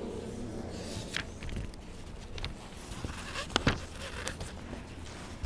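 Scattered light knocks and rustles of handling noise at a lectern, papers being moved, with sharper clicks about a second in and again around three and a half seconds in.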